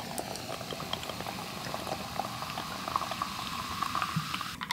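Carbonated grapefruit sparkling water poured from a can into a glass mason jar, fizzing and crackling with many tiny pops as it fills. The pour stops just before the end.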